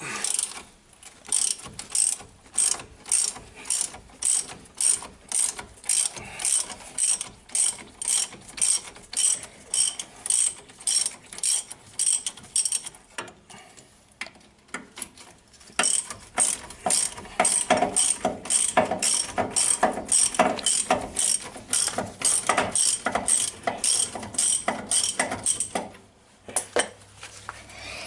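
Hand ratchet wrench clicking as it is worked back and forth on a brake caliper fastener, a steady run of about two clicks a second. It pauses about halfway through, then resumes faster and busier before stopping near the end.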